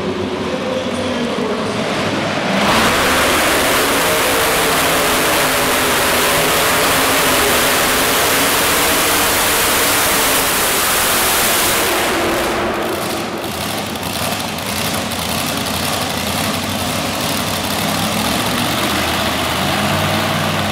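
Supercharged modified pulling tractor engine running at low revs, then opened to full throttle about three seconds in for a loud run of about nine seconds. It comes off the throttle with crackles and settles back to a lower, steady running note as the tractor stops.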